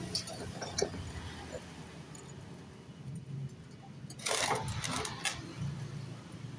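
Light metallic clinks and handling noises, with a short, louder scrape or rattle about four seconds in, over a low steady hum.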